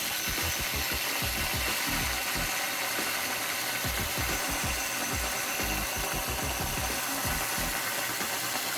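Small belt sander running steadily on its newly fitted V-belt drive: a constant high hiss with irregular low thumps beneath. It runs properly, though the V-belt could use a little tightening.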